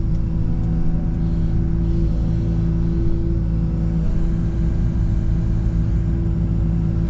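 Excavator engine running steadily while it works a pile, with a steady whine that swells louder for a second or so at a few points.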